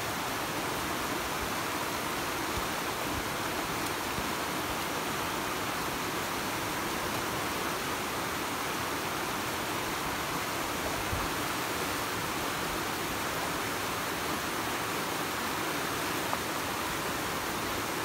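Shallow stream rushing over rocks: a steady, even rush of water.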